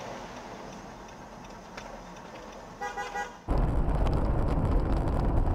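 Quiet street traffic noise, then a car horn sounds a few short toots about three seconds in. It cuts suddenly to a much louder low rumble of a car driving on a dirt road, heard from inside the car.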